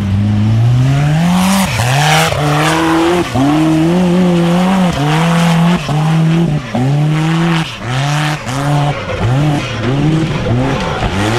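Formula Offroad hill-climb buggy's engine at full throttle, revs climbing hard at the launch, then rising and dropping over and over, more quickly toward the end, as the tyres spin and catch on the loose dirt slope.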